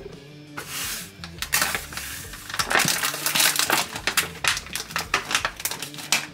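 Thin plastic packaging being slit with a kitchen knife and then crinkling and tearing in irregular crackles as sliced ham is pulled out of the pack.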